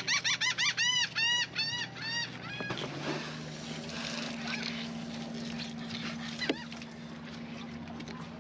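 A bird calling in a fast run of harsh, arched notes, about four a second, that stops just under three seconds in. A steady low hum then sets in, with a few single call notes.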